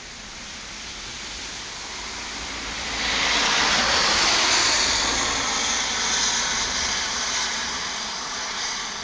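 Rolling thunder: a long rumble that swells over about three seconds, is loudest a little past the middle, then slowly dies away over a steady hiss.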